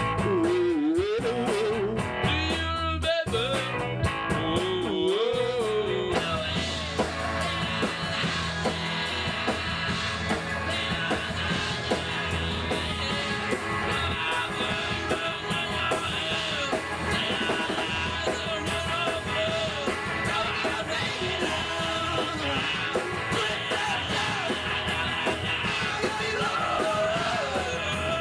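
Rock song with singing and guitar. A sung line over sparse accompaniment opens it, then the full band with drums comes in about six seconds in and plays on under the vocals.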